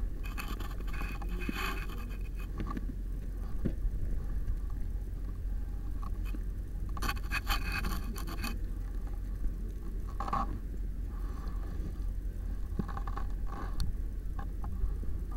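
Handling noise from the camera being carried and rubbed against a jacket: irregular scraping and rustling bursts, strongest about seven to eight seconds in, over a steady low hum.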